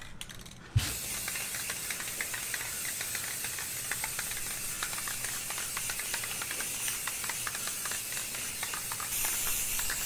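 Aerosol spray paint can spraying in one long continuous hiss, laying a light coat of paint on a metal bracket. It starts with a knock about a second in, with small faint clicks running through the hiss.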